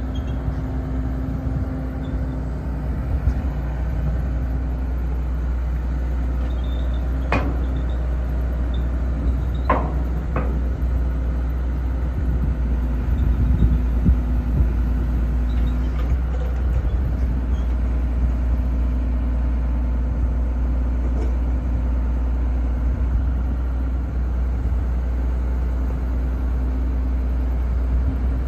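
CAT 320CL excavator's diesel engine running steadily with a low drone. Three sharp knocks come through it, about seven and ten seconds in.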